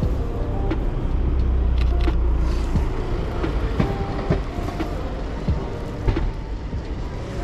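City street traffic: a road vehicle passes with a low rumble that swells about a second in and fades by about three seconds, over steady street noise with scattered short knocks.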